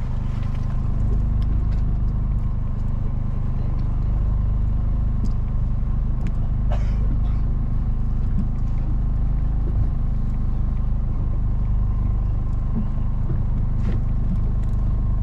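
A fishing boat's engine running steadily with an even, low hum, and a few faint knocks over it.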